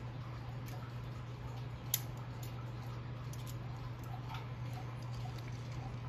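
Small, irregular metal clicks and light taps from hands fitting parts into the brass plates of a Regula 34 cuckoo clock movement, one sharper click about two seconds in, over a steady low hum.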